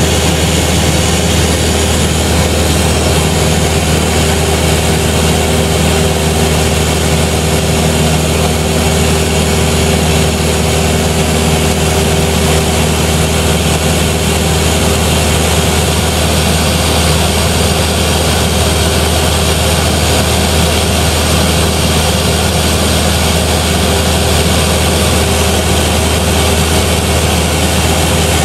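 Cessna 172's piston engine and propeller running steadily in cruise flight, heard from on board as a loud, even drone with a deep hum and a constant rush of air noise.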